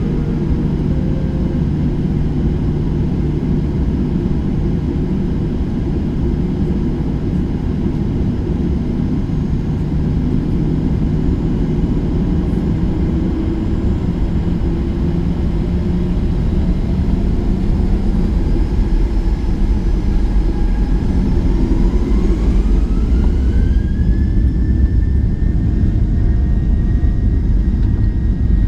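Boeing 737-800's CFM56-7B jet engines heard inside the cabin as a steady low rumble. About two-thirds of the way in, the engines spool up: a rising whine climbs, then levels off into a steady higher tone as the rumble grows.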